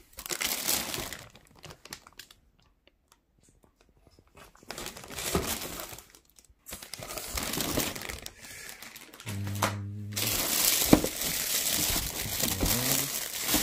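Clear plastic packaging bags crinkling and rustling as wrapped items are handled in a cardboard box, in spells with a quiet gap of about two seconds. The rustling is loudest in the last few seconds.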